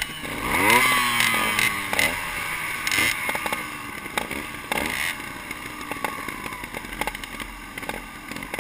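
Several dirt bike engines running close by, one revved sharply about a second in and falling back, with more short throttle blips and scattered sharp clicks after.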